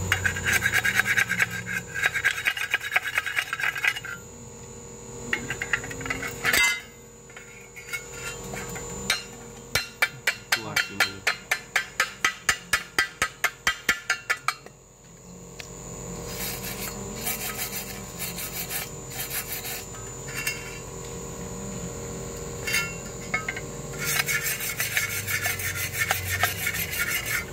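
Wire brush scrubbing slag off fresh stick welds on thin galvanized steel square tube, in fast back-and-forth strokes. There is a run of quick, regular strokes at about four a second in the middle, and a single sharp click a little before it.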